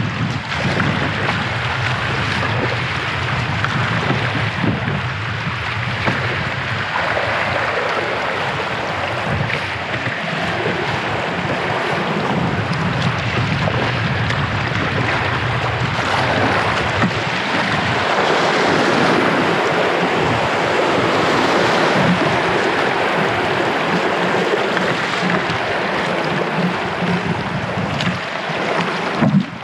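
Whitewater rapids rushing and splashing loudly and steadily around a canoe running through them.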